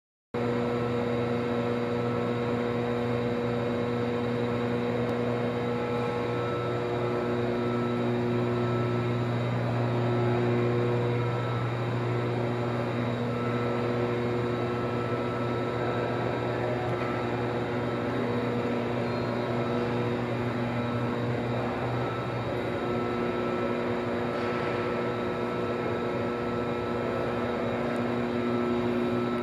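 Steady low machine hum with a buzzy edge, several steady tones over a low drone that does not change: the running equipment of a large indoor hall, heard as room tone.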